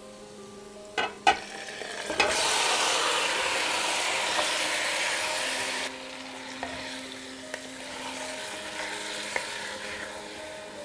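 Marinated chicken hitting hot mustard oil and fried onions in a pot. After a couple of light clicks, a loud sizzle breaks out about two seconds in. It eases after about four seconds to a quieter, steady frying sizzle.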